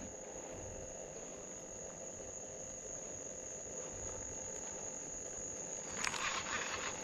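Crickets chirring in one steady, unbroken high drone, with a short rustle of handling about six seconds in.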